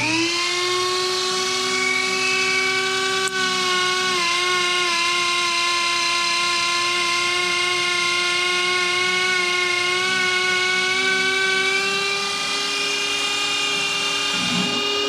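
Dremel rotary tool on a flexible shaft spinning up and running with a steady high-pitched whine as its bit works lightly on the rusted iron of a corroded carbine; the pitch dips and wavers briefly about four seconds in.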